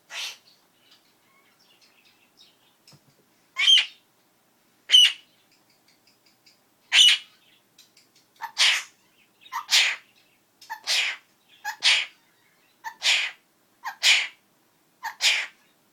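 Princess of Wales parakeet (Princess parrot) mimicking a human sneeze over and over: eleven short, hissy bursts, a few seconds apart at first, then about one a second. In the later ones a brief lower note comes just before each burst, like an "ah-choo".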